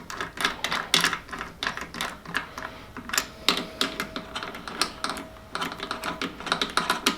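Rapid, irregular metallic clicking and ratcheting from hand work on a Quaife sequential gearbox being assembled on the bench, with a faint steady whine in stretches from about halfway in.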